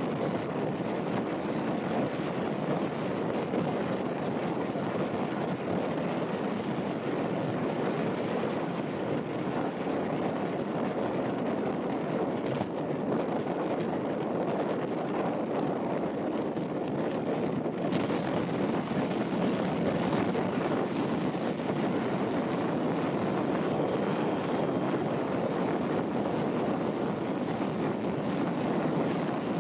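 Steady rushing noise of a ship under way, with wind buffeting the microphone; it turns hissier about two-thirds of the way through.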